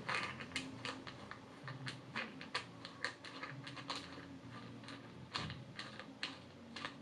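Faint, irregular small metal clicks and ticks, a few a second, as an axle bolt is turned by hand out of a balance bike wheel's axle.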